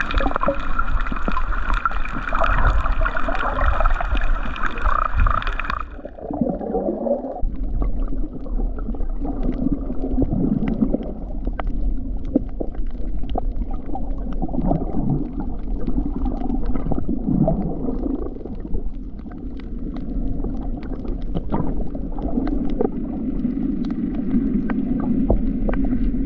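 Underwater sound on a coral reef, recorded through the camera's housing. A steady whine with a few held pitches cuts off about six seconds in. A continuous crackle of sharp clicks follows, typical of snapping shrimp, broken by irregular bubbling gurgles.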